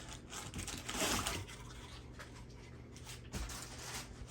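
Packing paper rustling and crinkling as items are pulled out of a cardboard box, loudest about a second in, with a light knock a little past three seconds.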